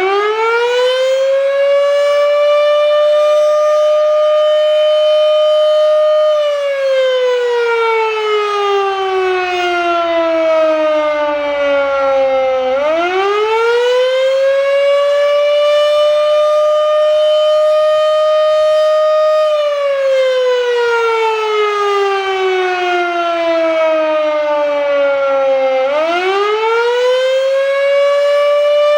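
Federal Signal Model 7B electromechanical fire siren sounding a wail on test: its pitch rises, holds steady for about six seconds, then slowly falls, repeating about every thirteen seconds.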